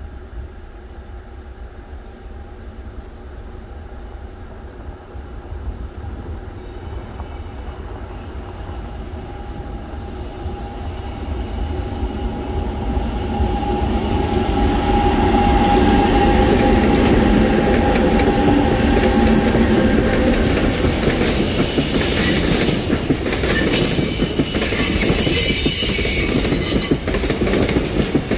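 Freight train drawn by two coupled Korail 8500-series electric locomotives approaching and passing, growing steadily louder over the first fifteen seconds with a steady tone as the locomotives near. Then a string of loaded bulk tank wagons rolls past, their wheels clicking over the rail joints.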